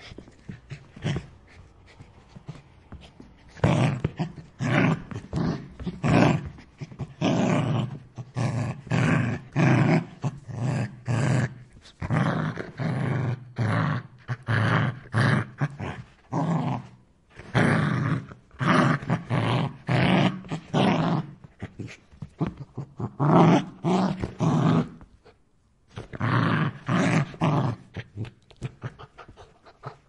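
A dog growling and snarling in a long run of short bursts, each under a second. The growls are faint for the first few seconds, then loud, with a brief pause near the end.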